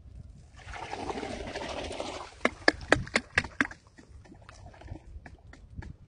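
Water sloshing and splashing, then a quick run of about seven sharp slaps as a bare hand strikes the water surface, followed by faint drips and small splashes.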